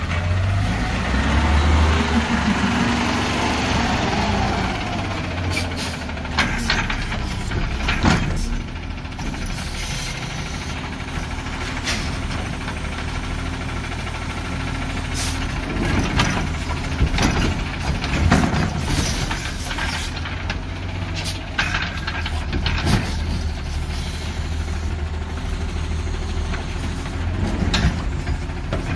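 Garbage truck engine running with a steady low rumble, its revs rising and falling at times, with many sharp clanks and knocks scattered through.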